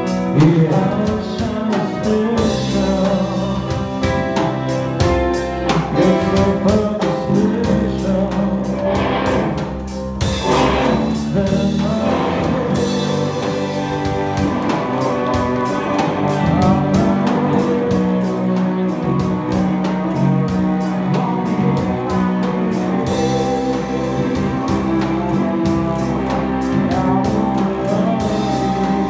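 A live band playing a song, with a steady drumbeat under it and a singer's voice.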